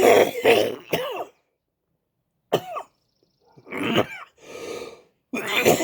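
A person coughing in fits: a run of harsh coughs in the first second or so, a pause, a single cough about two and a half seconds in, two more around four seconds, and another run starting near the end.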